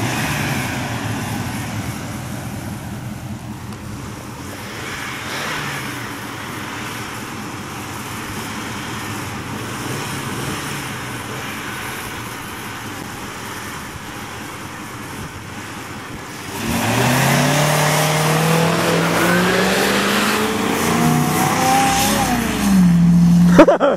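Truck engine running at a steady low note, then about two-thirds of the way through accelerating hard, its pitch climbing, dipping and climbing again, loudest just before the end.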